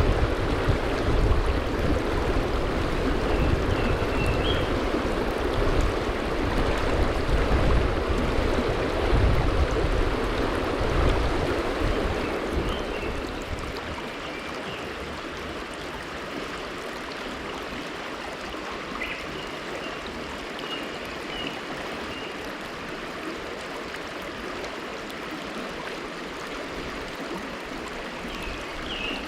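Mountain river water rushing steadily, loud with a deep rumble for about the first twelve seconds, then settling to a softer, even rush.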